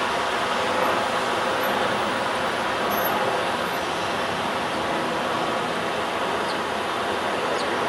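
Steady, even city traffic noise with no distinct events.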